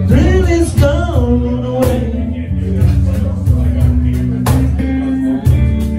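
Live band music: a man singing into a microphone over acoustic guitar and cajón, with a few sharp percussion hits.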